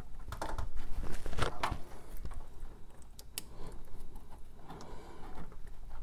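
Small clicks and rustling of wire connectors being handled and pushed together by hand, with a few sharper ticks about a second and a half in and again a little past three seconds.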